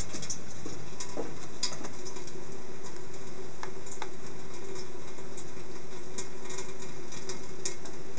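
Kitchen tap running a thin stream into a stainless-steel sink, a steady hiss, with scattered light clicks and taps of a ferret's claws on the stove top.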